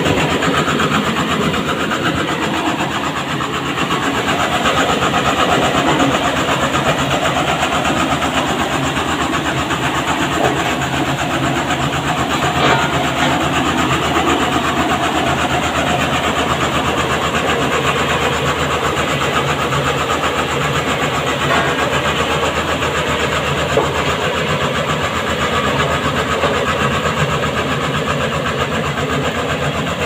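Lonking CDM512D road roller's diesel engine running steadily at idle.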